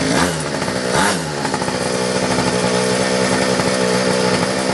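Mini moto's small two-stroke engine running with the choke off, revving up briefly twice near the start, then settling to a steady fast idle.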